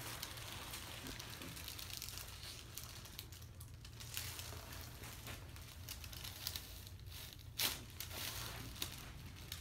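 Soft rustling and crinkling of a person shifting on a chiropractic treatment table, with a single short sharp click a little past seven seconds in.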